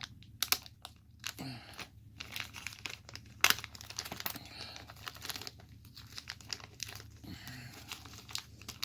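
Packaging being crinkled, pulled and torn open by hand: irregular crackling and rustling, with one sharp snap about three and a half seconds in.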